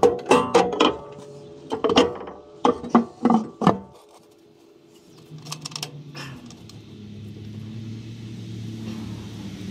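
Heavy rusty steel clutch-housing cover plate of a John Deere 450B dozer set down and shifted into place on its gasket: a run of ringing metal clanks over the first four seconds. A low engine hum then builds slowly in the background.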